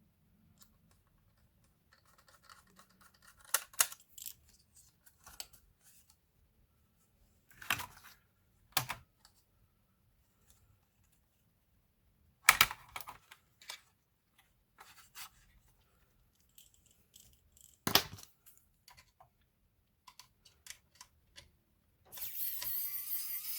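Scattered clicks and knocks of small laptop parts and tools being handled, a handful of sharp ones among lighter ticks; about two seconds before the end a steady mechanical whir starts up.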